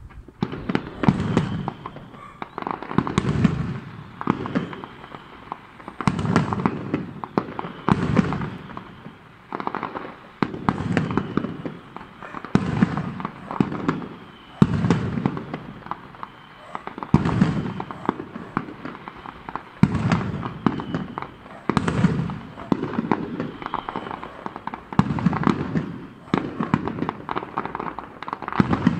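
Aerial firework shells bursting one after another, a bang every second or two, each followed by a low rolling echo.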